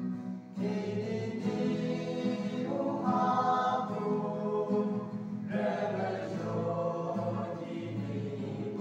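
Small mixed group of men's and women's voices singing a gospel song together, with a short break between phrases about half a second in, likely accompanied by acoustic guitar.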